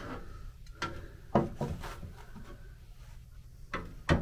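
Handling sounds as a foam-wrapped heater matrix is pressed and shifted into an MGB heater box casing. A few sharp knocks of the matrix against the box, the loudest about a second and a half in, with foam rubbing between them.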